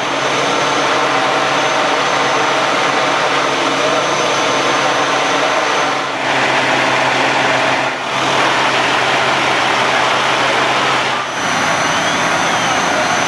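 Fire truck engines running steadily at a fire scene: a loud constant drone with a steady low hum and a thin high whine, dipping briefly about six, eight and eleven seconds in.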